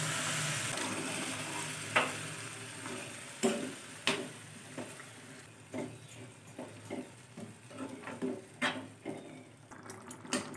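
Boiled white peas and their water sizzling in the hot oil-fried masala paste in a metal kadhai, the sizzle fading over the first few seconds. A metal spoon stirs the peas in, clicking against the pan now and then.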